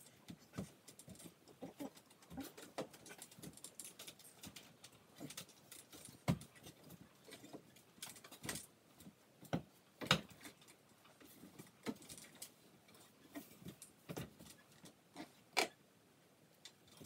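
Sped-up handling noise: scattered irregular clicks, taps and rustling, with three sharper knocks spread through.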